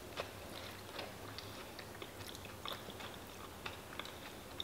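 Faint eating sounds: chewing and small sharp clicks of plastic forks on a plastic takeout tray, scattered irregularly.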